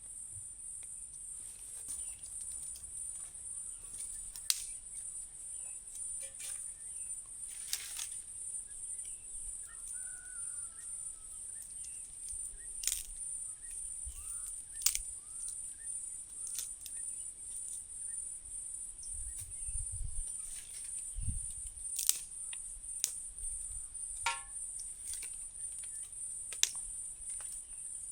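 Steady high-pitched insect chorus of crickets, with scattered sharp clicks and knocks every few seconds.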